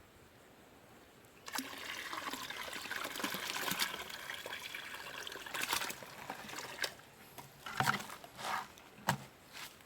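Water pouring and splashing, starting about a second and a half in and running steadily for about five seconds, then a few separate small splashes, as caught small fish are released into the river.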